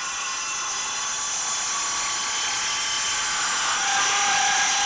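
Metabo HPT 36-volt MultiVolt cordless circular saw cutting through a thick piece of dried red oak in its silent mode, running steadily under load. The saw is working hard: the owner finds it weaker in silent mode and has to feed the cut slower.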